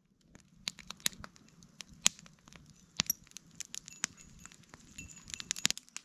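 Wood campfire crackling, with irregular sharp snaps; the loudest comes about two seconds in.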